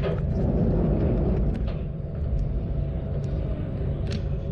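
Kanto Railway KiHa 532 diesel railcar under way, heard from the cab: a steady low engine and running drone that swells louder for the first second and a half. A few sharp clicks and ticks come about a second and a half in and near the end.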